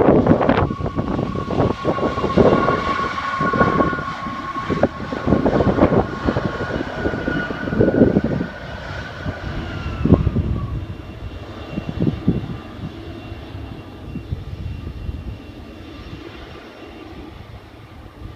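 Jet engines of a LAN Cargo Boeing 777 freighter going past: a loud rough roar with a steady whine, the whine dropping in pitch about ten seconds in, then the sound fading away.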